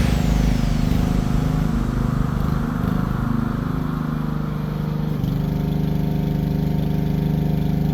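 Lawn mower engine running steadily, with a slight change in its note about five seconds in.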